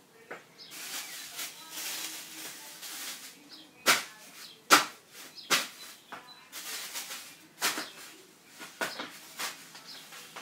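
Bagged ice cubes crunching underfoot as they are crushed, with stretches of crackling and plastic-bag rustle and a series of sharp cracks in the second half.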